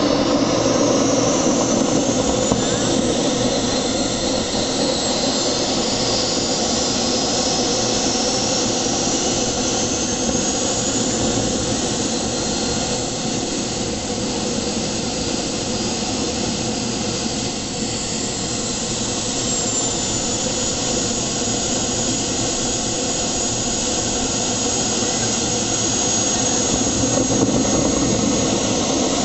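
Small gas-turbine engines of large radio-controlled scale model jets running on the ground: a steady rushing jet noise with a high whine that glides up and down, then holds as a steady high whistle over the last several seconds.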